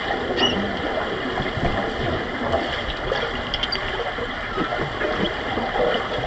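Underwater pool ambience heard through a submerged camera: a steady rushing, gurgling wash of water with a few faint clicks.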